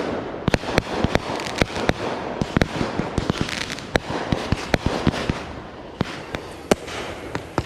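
Aerial consumer fireworks bursting in rapid succession: dozens of sharp reports at irregular spacing, overlapping with a continuous crackle.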